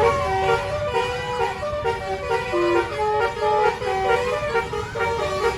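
Bus telolet horn of the 'basuri' kind, a melody horn module sounding through the bus's trumpet horns, playing a quick tune of short stepped notes. A low rumble runs underneath.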